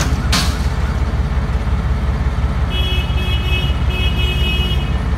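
Pakistan Railways diesel locomotive's engine rumbling low and steady as it slowly hauls a dead scrap locomotive, with a short hiss about a quarter second in. A high-pitched horn toots twice in the last two seconds.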